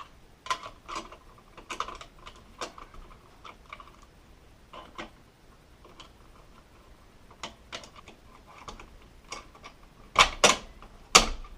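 Irregular plastic clicks and taps as snap-on slide covers are pressed onto toggle wall-switch levers, with the loudest snaps near the end. The fit is a struggle because the cover is being put on upside down.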